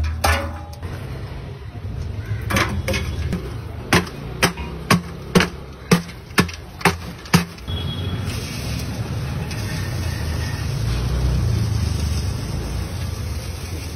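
Chunks of ice dropping into a metal barrel, then a wooden pole ramming the ice down inside it, about eight heavy strikes roughly two a second. Then a sack of salt is poured onto the ice, a steady hiss that swells near the end, over a low rumble.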